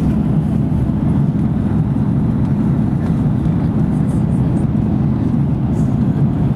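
Steady low roar of airliner cabin noise, the Airbus A330-200's engines and airflow heard from inside the cabin, holding an even level throughout.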